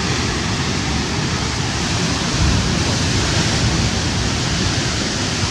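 Rough sea surf churning and washing against the foot of a rocky cliff: a steady rushing wash, swelling slightly about two and a half seconds in.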